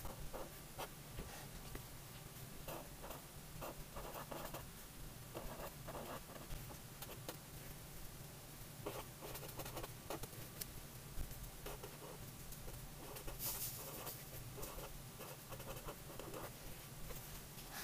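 Felt-tip marker writing on grid paper: soft, irregular scratchy strokes in short runs with small pauses between letters, and one brighter, sharper scratch about three-quarters of the way through.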